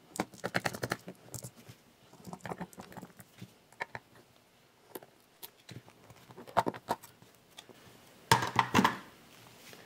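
T9 Torx screwdriver tip scratching away the paper label on a hard drive's metal cover and working the hidden screw beneath it: a run of light scrapes and clicks, densest at the start, with a louder burst of handling noise near the end.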